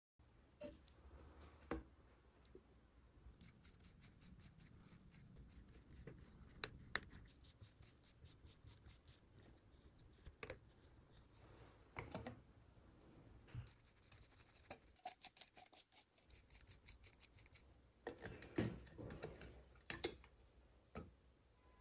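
Faint scattered clicks, taps and scrapes of metal cover plates and screws being handled and refitted on an Odhner arithmometer, busier near the end.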